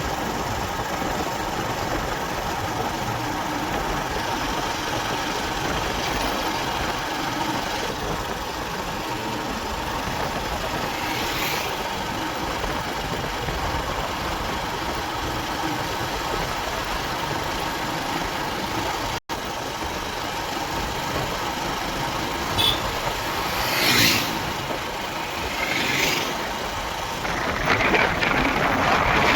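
Motorcycle running steadily on the move, with road and wind noise. The sound drops out for an instant about two-thirds of the way through; a few brief louder sounds follow, and it gets louder near the end.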